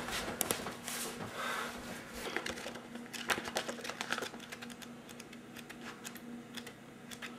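Pages of a paperback book being flipped by hand: quick papery flicks and rustles, in irregular clusters, over a faint steady hum.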